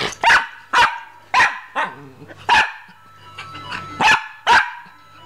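A dog barking right at the microphone: about seven short barks in uneven bursts, with a gap of more than a second near the middle before the last two.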